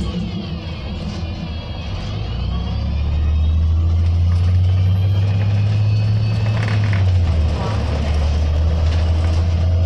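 Orion VII CNG bus's Cummins C8.3G natural-gas engine idling at a stop, a steady low hum that grows louder about three seconds in and holds. Passing road traffic sweeps by in the first couple of seconds.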